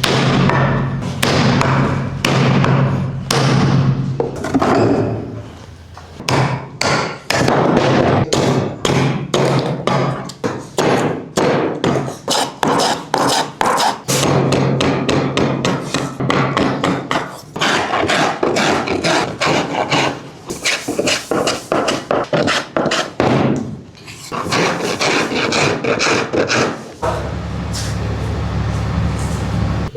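Repeated hammer or mallet blows on the wooden handle of a cricket bat, struck several times a second in runs with short breaks, over a steady low hum.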